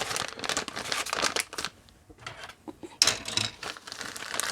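Plastic packaging crinkling and rustling as it is handled, in two spells: for about the first second and a half, then again, louder, from about three seconds in.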